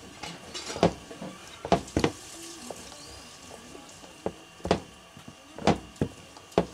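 Wooden rolling pin rolling dough thin on a wooden rolling board: a soft rubbing sound broken by irregular sharp wooden knocks as the pin is set down and shifted.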